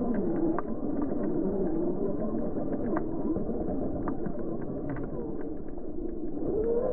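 Team Associated Rival MT10 RC monster truck's brushless motor and drivetrain running, the whine rising and falling with the throttle, with frequent small knocks and clicks from the truck bouncing over the trail. It sounds thin and muffled, as picked up by the onboard FPV camera.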